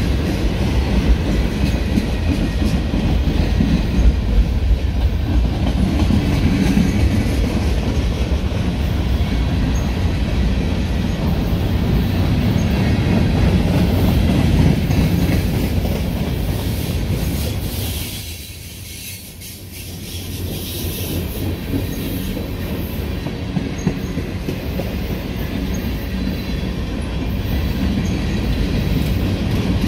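A train rolling past on the BNSF Chicago Subdivision, a steady heavy low rumble of wheels on rail. The sound drops away briefly about two-thirds of the way through, then builds back up.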